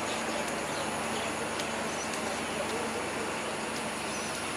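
Broad-gauge passenger train coaches rolling slowly past a platform, a steady even rumble and hiss without a clear wheel-beat, with faint distant voices and a couple of faint high chirps.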